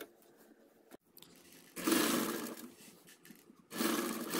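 Sewing machine stitching a seam in two short runs: the first starts about two seconds in, and the second follows after a brief pause.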